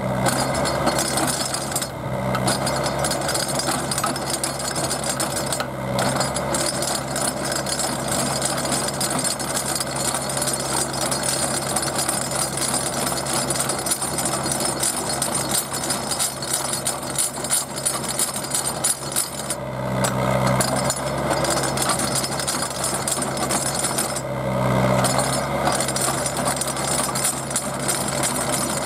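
Micro Drill auger rig drilling into bedrock shale: the rig's engine runs steadily under load while the turning auger grinds and rattles in the hole. The engine note swells louder a few times, most strongly about two-thirds of the way through and again shortly after.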